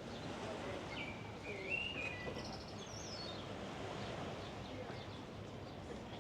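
Small birds chirping a few short notes over steady outdoor background noise, the chirps clustered in the first half.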